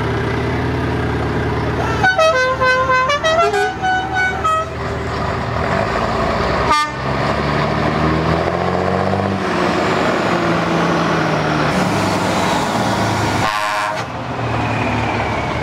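A multi-note musical air horn plays a short tune of stepped notes for about two and a half seconds, over the steady diesel drone of passing trucks. Later a truck engine pulls away, its pitch climbing in steps as it accelerates.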